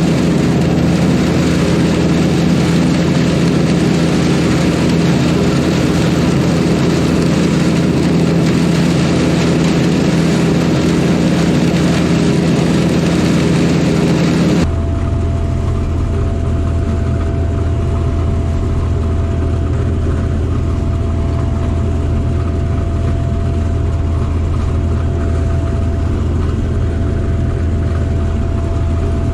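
Sampo 680 combine harvester running steadily while harvesting oats, a loud, even machine drone. About halfway through the sound changes abruptly to a duller drone with a steady hum tone.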